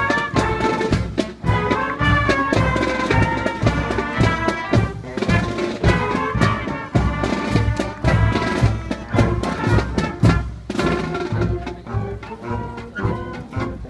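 Middle school marching band playing a march: brass carrying the tune over a steady drum beat.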